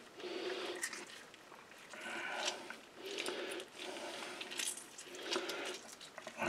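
Spoon scraping the pulp out of a halved lime over a bowl, a series of soft wet scrapes about one a second.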